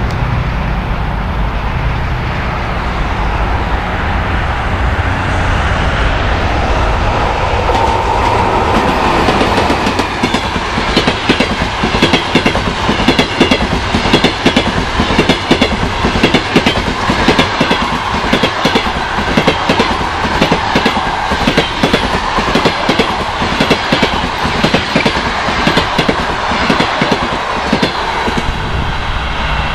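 EP1M electric locomotive and its passenger coaches passing: a rising rumble, then from about ten seconds in a rapid, continuous clickety-clack of wheels over the rail joints that eases off near the end.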